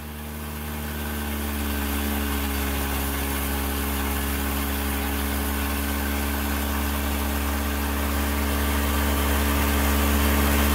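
Boat engine running at a steady speed, fading in over the first couple of seconds and then holding an even drone.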